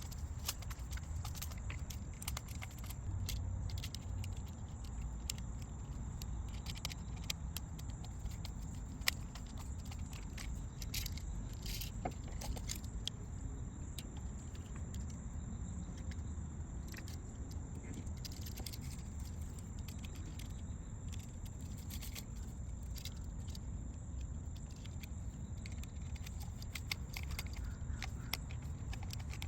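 Scattered small clicks, scrapes and metallic rattles of hands working on an outdoor GFCI outlet, its screws and cover plates, over a steady low rumble.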